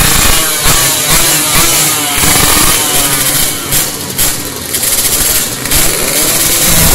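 Several two-stroke 150 cc race motorcycles revving hard, throttles blipped over and over so the engine pitch keeps rising and falling; near the end the engines hold a steadier, loud note.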